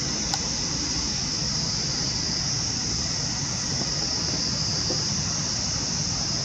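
Cicadas droning in one steady, high-pitched, unbroken chorus.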